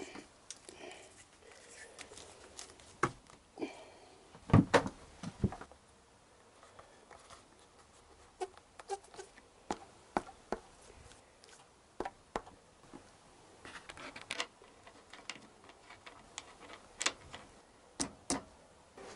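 Scattered light clicks and knocks of hands working a rubber grip onto a motorcycle handlebar, with a few louder knocks about four and a half to five and a half seconds in.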